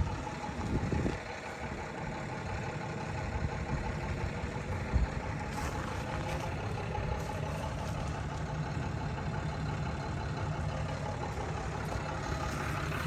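Caterpillar D3B crawler dozer's diesel engine idling steadily.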